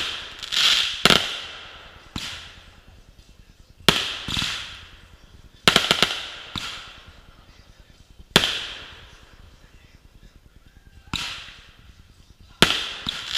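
Aerial fireworks going off: about nine sharp bangs, one every second or two with a longer gap past the middle, each followed by a fading crackling hiss.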